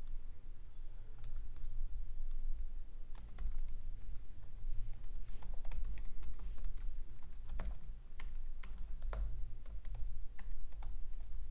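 Typing on a computer keyboard: quick, irregular key clicks, coming thick from about three seconds in, over a low steady hum.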